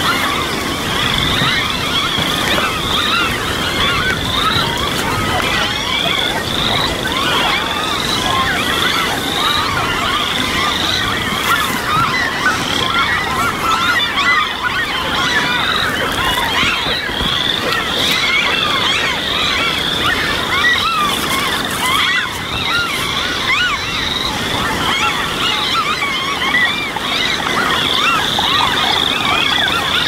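A dense spring chorus of birds and frogs calling from the marsh: many overlapping chirping calls, with one high note repeating a little more than once a second.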